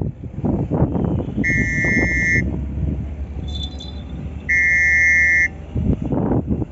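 A horn sounding two long, steady, high-pitched blasts about three seconds apart, over a low, steady engine rumble.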